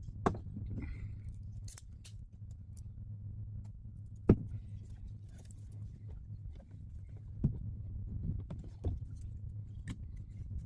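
A few sharp knocks and clicks, the loudest about four seconds in, over a steady low hum.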